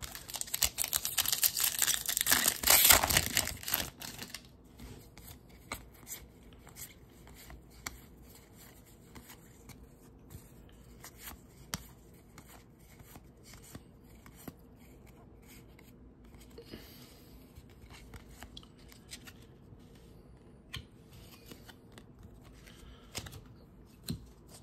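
A foil Topps baseball-card pack wrapper being torn open and crinkled for the first few seconds. After that come soft clicks and light rustles as the cards are flipped through one by one.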